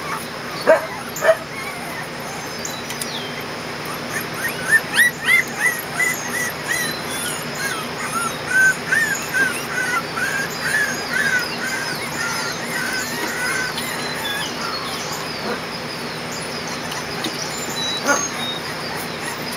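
Young Kerry Blue Terrier puppies, about 20 days old, whining and yelping. Two sharp yips come about a second in, then a quick run of short, high-pitched cries, two or three a second, from about four seconds in until roughly twelve seconds in.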